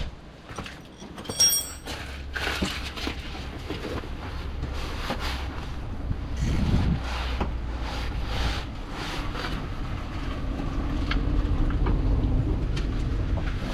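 Scraping, creaking and clattering of hand tools and car parts being worked on the underside of a car. A single ringing metal clink comes about a second and a half in, over a low steady rumble.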